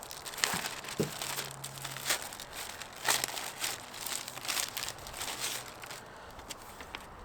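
Packaging crinkling and rustling in irregular crackles as it is handled and opened.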